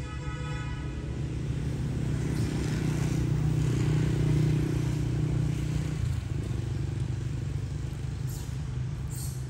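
A motor vehicle's engine running, growing louder to a peak about halfway through and easing off about six seconds in, as it passes by.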